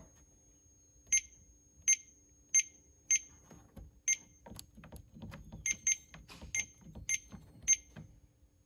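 Tire balancer's keypad beeper giving a short high beep each time a conductive rubber button is pressed, about ten beeps at an uneven pace. Each beep shows a button press registering.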